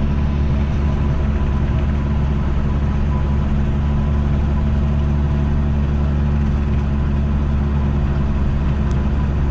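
Tractor engine running steadily while mowing, a constant low drone.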